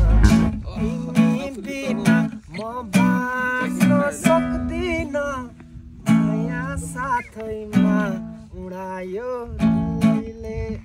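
Acoustic guitar strumming chords, with a melody over it that bends in pitch like a singing voice.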